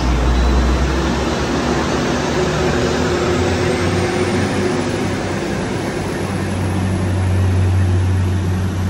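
Transport for Wales diesel multiple unit pulling away from the platform and picking up speed, its underfloor engines running under power. The low engine note grows stronger from about halfway through, and a faint high whine rises in pitch along the way.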